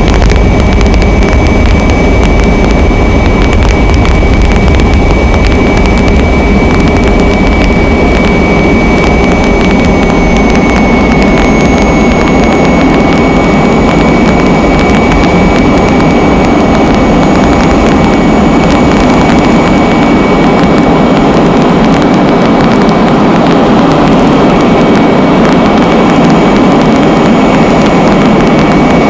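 Aircraft engine and cabin noise heard from on board, a loud, steady drone with a constant high whine.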